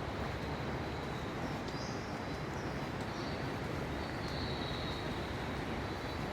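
Ambience of a large indoor tropical rainforest hall: a steady low rush of noise, with a thin steady high tone and short, faint high chirps recurring every second or so.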